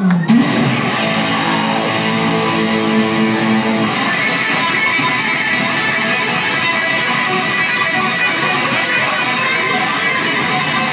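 Live rock band playing, electric guitar to the fore with strummed chords. A held note bends downward right at the start.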